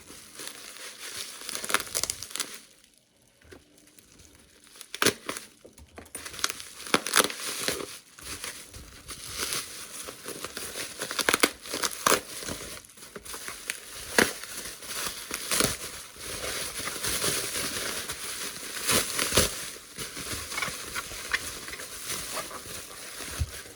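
Hands rummaging through a box of packing peanuts, an irregular rustling and crinkling with many small sharp clicks.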